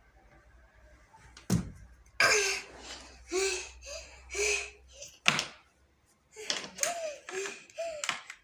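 A heavy thud of a child landing on the floor after jumping down from a raised surface, followed by the boy's voice and a sharp knock about halfway through.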